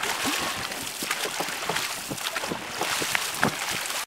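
Dragon boat paddles splashing and churning the water as the crew strokes, with wind buffeting the microphone.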